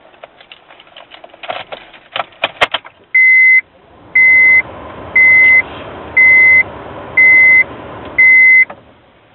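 Six even, high electronic beeps, about one a second and each about half a second long, after a few seconds of clicks and rustling; a steady hum runs under the beeps and stops with the last one.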